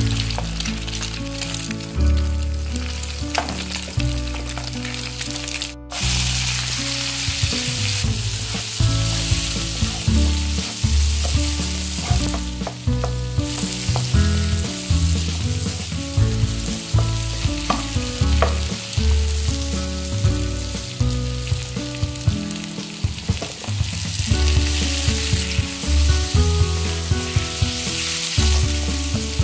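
Hot cooking oil sizzling in a frying pan as eggs, then sliced onion and garlic, then diced tomato fry, with a spatula stirring. Background music plays underneath, and the sizzle drops out briefly at a cut about six seconds in.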